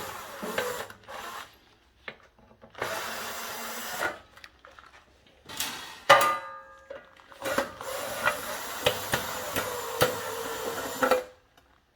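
Screwdriver backing out the two screws that hold the sheet-metal divider plate of a Rancilio Silvia espresso machine. Several stretches of steady rubbing, each one to a few seconds long, with small clicks between them and a louder ringing metal scrape about six seconds in.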